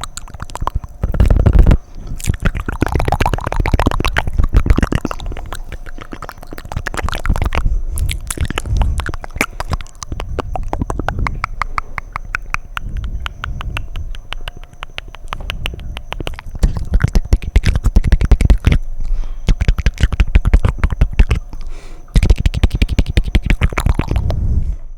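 Fast, wet mouth sounds right at the microphone: rapid tongue clicks and smacks in dense runs, broken by a few short pauses.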